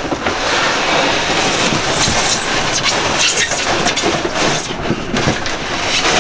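Cardboard shipping box and plastic packaging scraping and rustling as the carton is lifted off a new refrigerator, a dense irregular handling noise.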